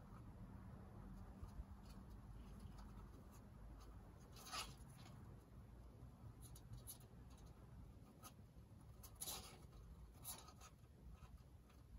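Faint scratching of a young hedgehog's claws on a door sill and terrace as it climbs down. There are a few short scratches, one about four seconds in and several more in the second half, over near silence.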